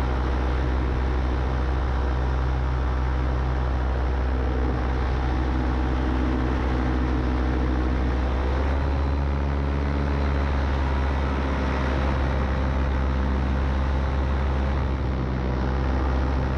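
Paramotor engine and propeller droning steadily in flight, its pitch shifting slightly about halfway through.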